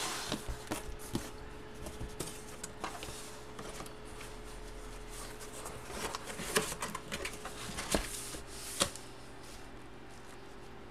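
Handling of large photo prints and cardboard box packaging: paper rustling and scattered light taps and clicks, busiest between about six and nine seconds in.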